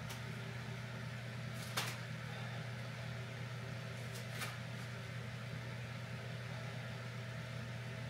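A steady low mechanical hum, with two short sharp clicks about two seconds and four and a half seconds in.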